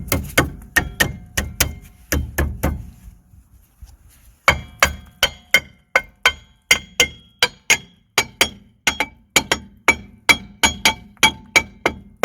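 Steel brake drum of a Toyota Yaris being tapped onto the rear hub with a hammer, seating it over the new wheel bearing. Repeated strikes about two to three a second, with a short pause about three seconds in; after the pause each blow leaves a brief metallic ring.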